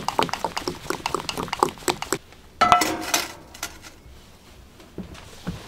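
A spoon stirring pancake batter in a glass measuring cup, clinking rapidly against the glass for about two seconds. It stops, and a single ringing metal clank follows about two and a half seconds in, then quieter handling sounds.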